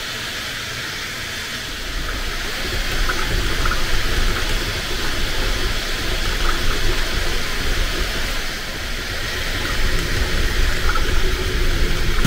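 Bambu Lab 3D printer running a print: a steady rushing whoosh of its cooling fans over a low hum, with a few faint ticks.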